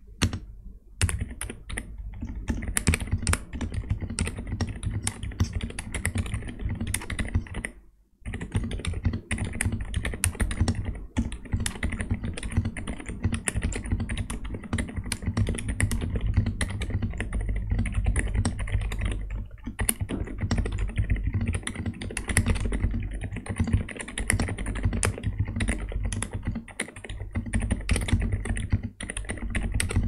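Typing sound test on a stock Skyloong GK87 Pro mechanical keyboard with Skyloong Glacier Silent linear switches on a polycarbonate plate: fast, continuous keystrokes with a brief pause about eight seconds in.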